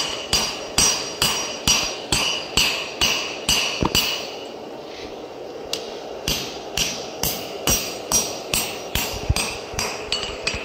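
Hand hammer striking a red-hot steel Dane axe blank on an anvil, about two blows a second, each with a bright metallic ring. The blows stop for about two seconds midway, then start again and die away near the end.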